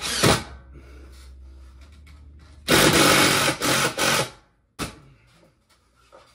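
Cordless drill driving screws to fasten a bathroom exhaust fan housing into the ceiling framing: a short burst right at the start, then a longer run of about a second and a half near the middle.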